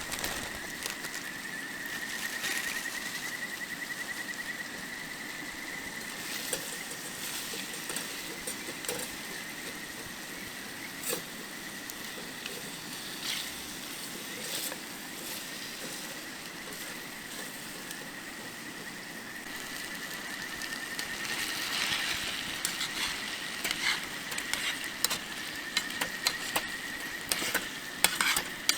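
Food sizzling in a hot pan with crackling pops that grow busier and louder toward the end, over a steady high-pitched whine.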